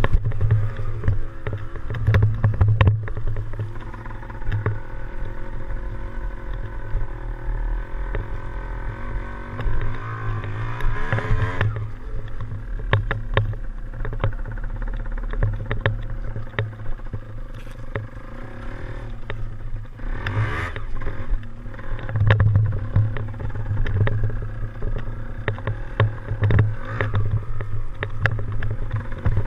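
Yamaha DT175 two-stroke single-cylinder dirt bike engine running under way, its pitch rising as it revs up about ten seconds in and again about twenty seconds in, over a steady low rumble with frequent short knocks and rattles.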